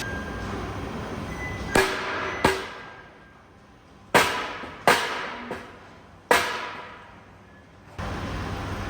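Hammer striking steel: five hard blows and one lighter one, unevenly spaced, each ringing out and dying away.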